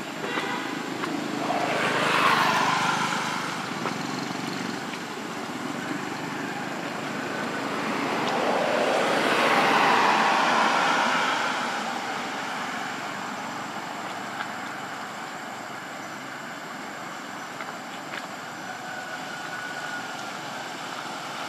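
Road traffic going by: a steady background of noise with two vehicles passing, each swelling and fading over a few seconds, about two seconds in and again around ten seconds in.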